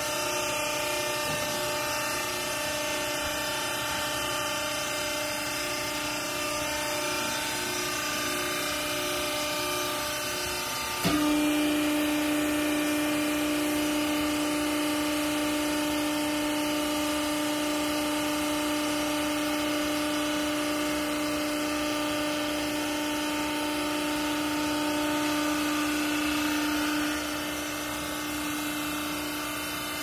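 TCM vertical hydraulic clothes baler's hydraulic pump and electric motor running with a steady mechanical hum. About eleven seconds in a click sounds, and the hum turns louder with a strong steady tone. It drops back near the end.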